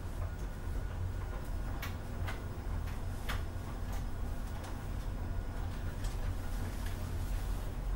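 Scattered light clicks and taps of things being handled, several in the first half and fainter ones later, over a steady low hum.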